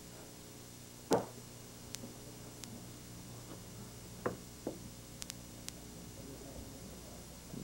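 A few sharp knocks over a steady low hum: one loud knock about a second in, two more close together around four seconds in, and a few faint ticks shortly after.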